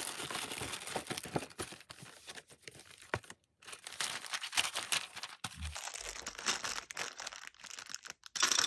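Paper wrapping and cellophane crinkling and rustling as hands handle and pack a gift, with a short break a little over three seconds in.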